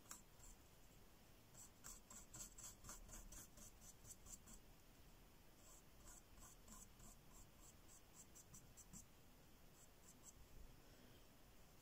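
Faint scratchy strokes of a paintbrush dabbing and dragging acrylic paint across a painted board, in short runs of quick strokes.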